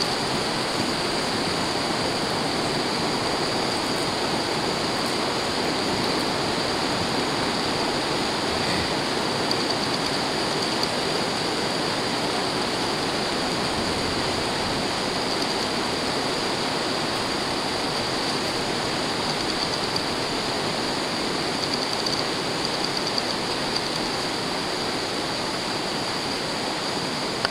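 Steady, even rushing noise, like running water, without change and with no distinct hoofbeats standing out.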